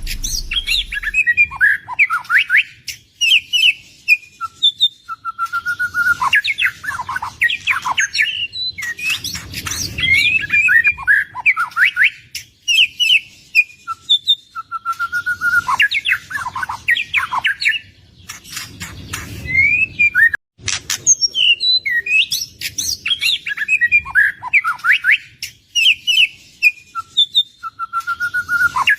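White-rumped shama (murai batu) singing continuously in full song: rich, varied whistled phrases and chattering notes, with a short held whistle that comes back every several seconds.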